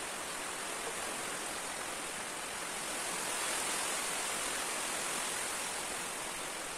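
Steady rushing noise, like rain, running water or recording hiss, with no distinct knocks or other events; it swells slightly in the middle.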